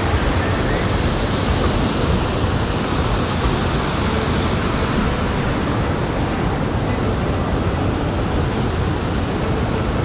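Loud, steady rush of whitewater from river rapids and a small waterfall, even and unbroken.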